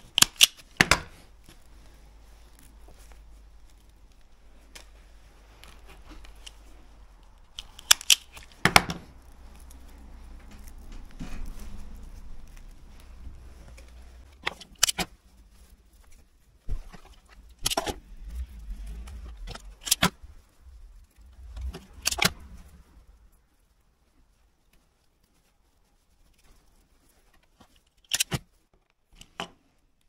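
Sharp snaps, a few seconds apart, of a hand wire stripper cutting through power-plug cable, with small pieces of metal clinking as they are dropped into a plastic tub.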